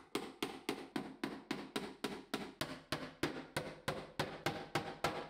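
Hammer driving the nails of a wooden carpet gripper strip into a wooden stair: a fast, even run of strikes, about four a second.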